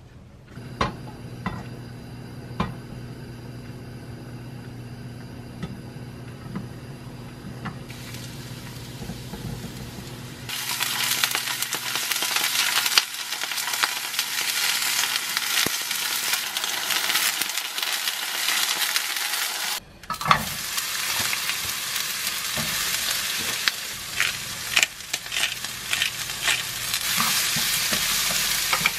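A steady low hum with a few knocks, then, about ten seconds in, peeled boiled eggs and onion start sizzling in a hot nonstick frying pan. After a brief break, sliced onions sizzle as they are stir-fried, with the wooden spoon clicking and scraping against the pan.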